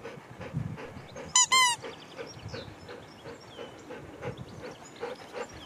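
Squeaky donut-shaped dog toy squeezed twice in quick succession: two short, loud squeaks, the second sliding down in pitch at its end.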